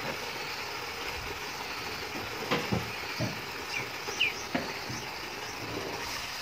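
Kitchen tap running a steady stream of water into a plastic tub of soaked chickpeas in a stainless steel sink, with a few soft knocks.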